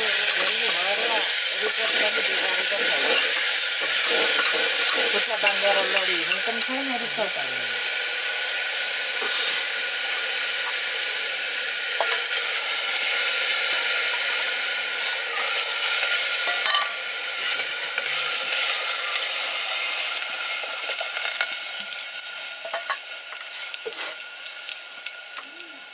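Food frying in hot oil in a pan: a steady sizzle while it is stirred, with a few light knocks. The sizzle dies down over the last few seconds.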